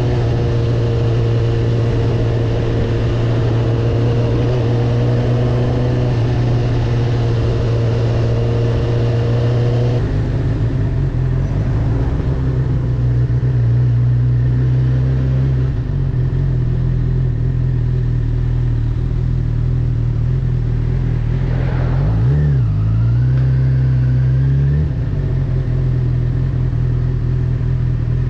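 Honda CB1000R's inline-four engine running steadily as the bike is ridden. Its note shifts about ten seconds in and again a little later, and dips briefly and comes back up about two-thirds of the way through.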